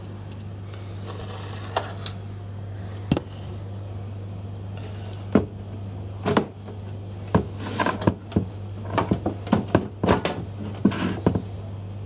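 Knocks and clatter of a small desktop PC's metal case being handled and set down on a wooden desk. There are a few isolated knocks early, then a quick run of sharp knocks in the second half, over a steady low hum.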